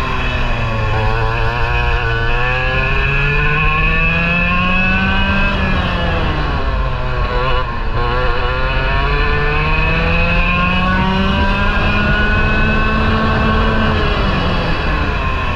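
Parilla SS20 two-stroke kart engine at racing speed, heard close up from the kart: revs climb steadily for about five seconds, drop off for a corner around the middle, climb again, then fall off once more near the end.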